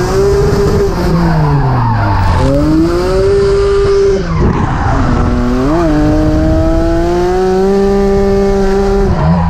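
BMW E46 M3 drift car at full drift, its engine revs falling and climbing again and then held high with a short blip about halfway, over tyres squealing and spinning in smoke.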